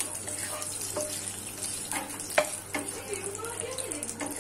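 Hot oil sizzling in a nonstick frying pan as whole spices, including a cinnamon stick, are sautéed. A wooden spatula scrapes and taps the pan a few times, the sharpest tap about two and a half seconds in.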